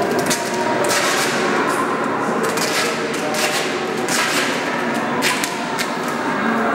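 Irregular wooden knocks and scrapes as lengths of wooden board are handled and worked on a hard floor, a few sharp knocks among longer scraping strokes.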